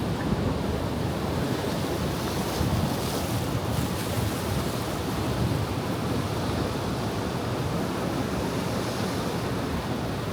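Ocean surf washing steadily on the shore, with wind rumbling on the microphone. A wave breaks with a brighter hiss a few seconds in.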